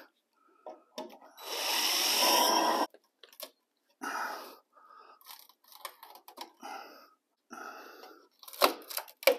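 Power drill drilling out a spot weld in the sheet-metal cab corner of a GMC squarebody truck: one loud run of about a second and a half, then shorter, quieter bursts of drilling and scraping, with a couple of sharp knocks near the end.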